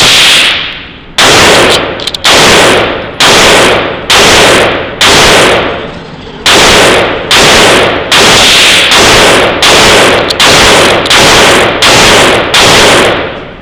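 A rapid string of about fourteen loud rifle shots, roughly one a second, each followed by a short echoing decay.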